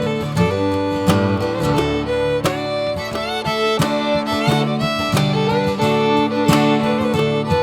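Background music in a bluegrass style: a fiddle playing a melody with sliding notes over strummed and plucked guitar.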